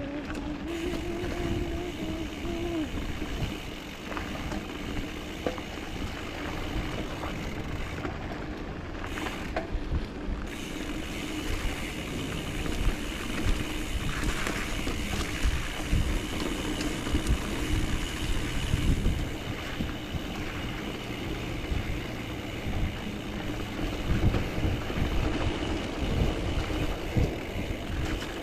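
Mountain bike rolling along a dirt singletrack trail: steady tyre and wind noise with frequent knocks and rattles as the bike goes over bumps.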